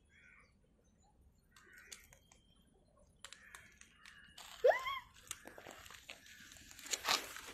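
Rustling and crunching noises that set in a few seconds in, with one short rising animal call about halfway through, the loudest sound.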